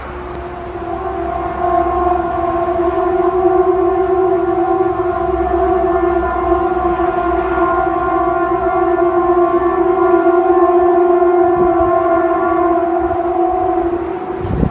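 Loud, steady, horn-like drone: one low pitched tone with several overtones that swells in over the first couple of seconds, holds without rising or falling, and stops near the end.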